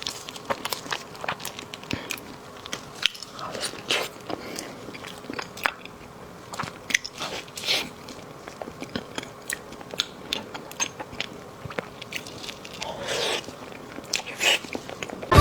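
Close-miked eating sounds: a person biting and chewing a dessert, with irregular wet mouth clicks and smacks.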